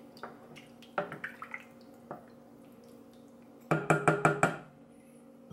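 Wooden spoon stirring broth in a stainless steel saucepan, knocking against the pan a few times about a second in and in a quick run of knocks near four seconds in.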